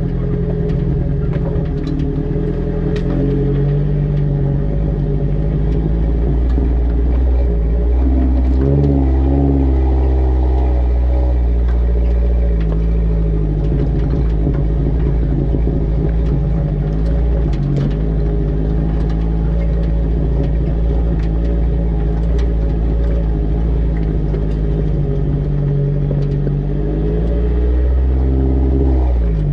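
A vehicle's engine running steadily as it drives slowly over a rocky track, heard close from the rear, with scattered small knocks and rattles. The engine pitch wavers about a third of the way in and rises near the end.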